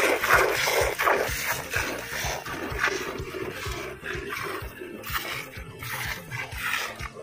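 Cow being milked by hand: rhythmic squirts of milk striking a pail, stroke after stroke. This is the first milking after calving, drawing off the thick colostrum.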